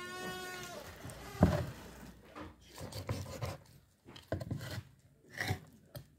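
A knife cutting up a hare carcass on a wooden cutting board. One sharp chop strikes the board about a second and a half in, followed by scattered softer knocks and scraping.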